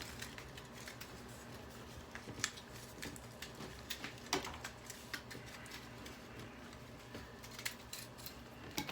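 Scattered light clicks and taps of hair dryer parts being handled and pried apart by hand, over a faint steady low hum.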